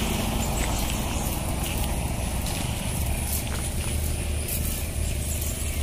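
A steady low engine drone, with a few faint light clicks over it.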